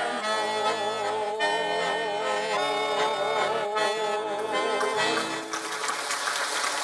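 Accordion accompanying folk voices that hold a long wavering final note of a Russian folk song. About five seconds in the music breaks off and a wash of applause begins.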